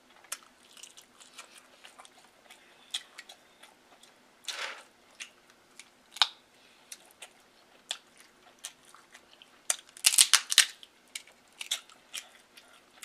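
Shellfish shell being cracked and picked apart by hand, with chewing in between: scattered small clicks and snaps, and a cluster of loud sharp cracks about ten seconds in.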